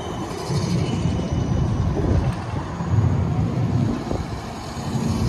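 GVB Siemens Combino tram rolling slowly past at close range, a steady low-pitched sound from its wheels and running gear on the rails.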